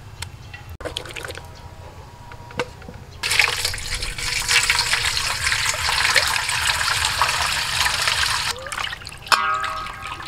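A stream of water pours and splashes into a steel bowl holding cut catfish pieces. It starts about three seconds in, runs steadily for about five seconds and stops abruptly near the end.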